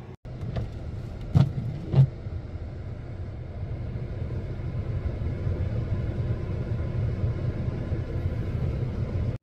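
Steady low rumble of a car heard from inside the cabin, slowly growing louder, with two sharp knocks a little after a second in.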